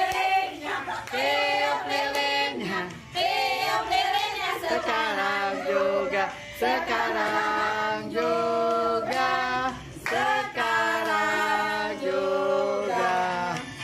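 Several women singing a birthday song together in Indonesian, unaccompanied, holding each note for about a second.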